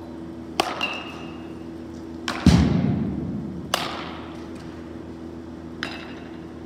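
Baseball bats striking balls in a batting cage: a string of sharp cracks, the first with a short ringing tone, and a heavy thud about two and a half seconds in. A steady low hum runs underneath.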